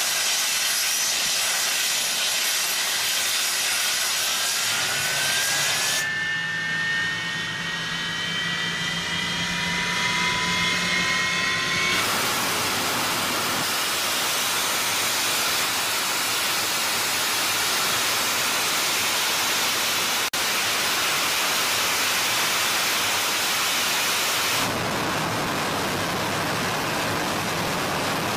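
English Electric Lightning's Rolls-Royce Avon turbojets on a ground run: a loud hiss with a whine that rises in pitch as the engines spool up, then from about twelve seconds a dense, steady roar with the reheat lit. The sound changes abruptly at a few cuts between clips.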